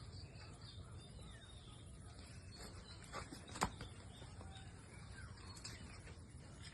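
Faint low background rumble with a few faint chirps, broken by two sharp clicks a little after three seconds in, the second the louder.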